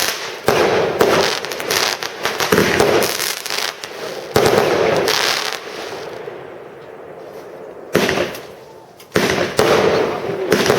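Consumer fireworks battery firing: rapid launches and bursting shells with crackle, a fading lull about six seconds in, then sharp bursts again.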